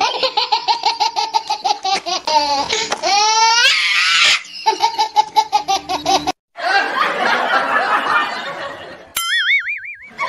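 Human laughter: a person laughing in quick, evenly repeated bursts for about six seconds, then rougher laughing. Near the end comes a clean, warbling whistle-like sound effect.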